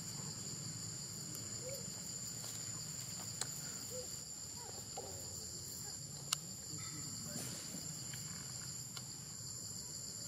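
Steady, high-pitched drone of an insect chorus, holding two pitches, with two sharp clicks about three and a half and six seconds in.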